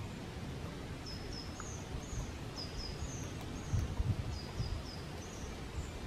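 Thin, high calls of a small songbird: short notes, often in quick pairs, repeated from about a second in, over a steady outdoor hiss. A few low thumps fall around the middle.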